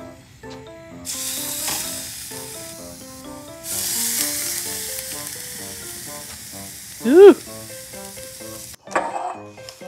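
Raw carp fillets sizzling on the hot wire rack of a cassette-gas tabletop grill: the sizzle starts about a second in as the first fillet goes down, jumps louder at about three and a half seconds with the second, and cuts off suddenly near the end. Background music plays throughout, and a short, very loud pitched swoop that rises and falls comes about seven seconds in.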